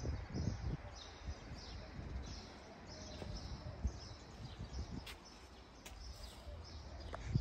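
Small birds chirping over and over, short falling chirps several times a second, over a low outdoor background rumble. A few sharp clicks come in the second half and a thump near the end.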